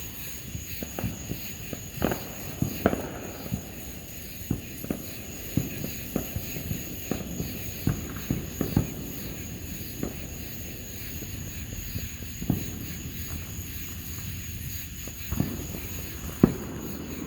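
Fireworks going off: an irregular string of sharp pops and cracks, some louder than others, scattered through the whole stretch.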